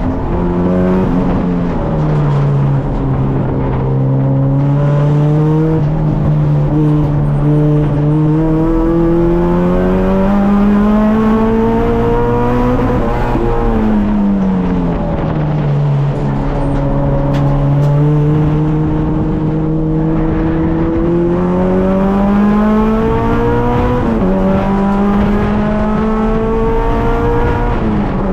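Honda K24 2.4-litre inline-four in an EK Civic at speed on track. The engine note climbs slowly for several seconds at a time, falls away smoothly twice as the car slows, and drops quickly a few times at gear changes.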